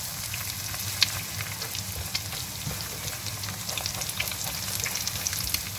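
Egg and aromatics sizzling in hot oil in a frying pan, with scattered crackles and a spatula tapping and scraping as the egg is scrambled; one sharper click about a second in.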